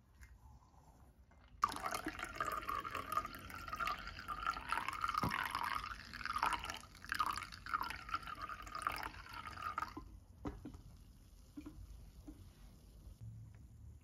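Hot coffee poured from a glass coffee-maker carafe into a ceramic mug, starting suddenly and stopping about ten seconds in, followed by a few faint drips.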